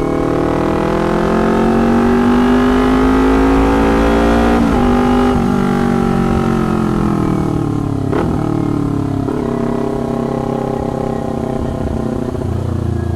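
Kawasaki Ninja 250 parallel-twin engine through a loud aftermarket slip-on exhaust, accelerating on the road: the revs climb, break briefly twice at gear changes, then ease off. A very noisy, raspy can-type exhaust.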